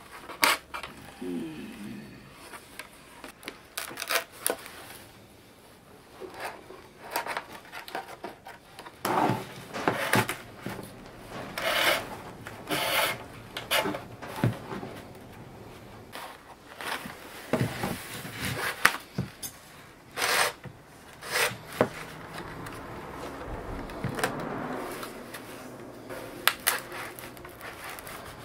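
Thin binding strips scraping and rubbing as they are pulled and worked through the woven bamboo of a winnowing basket, in irregular bursts with short clicks.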